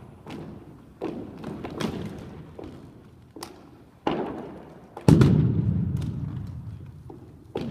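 Rifle drill team's exhibition routine: a string of irregularly spaced thuds and knocks from rifles and boots, each ringing on in a large hall. The loudest is a heavy thud about five seconds in.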